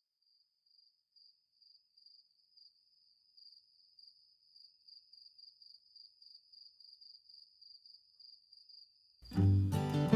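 A chirping insect: a single high note pulsing two to three times a second, slowly growing louder. About nine seconds in, strummed acoustic guitar music comes in and becomes the loudest sound.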